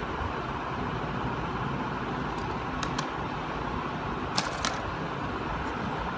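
A few short, sharp clicks of plastic LEGO Technic parts being handled, a pair of louder ones about four and a half seconds in, over a steady background rumble and hiss.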